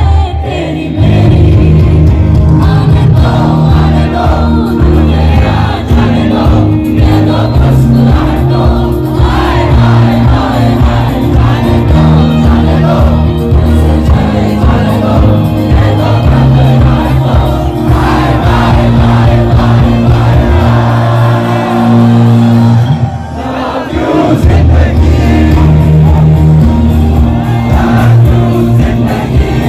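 Loud live concert music: a band with a heavy bass line and a singer, with crowd noise mixed in. The bass thins out briefly about two-thirds of the way through, then the full band comes back in.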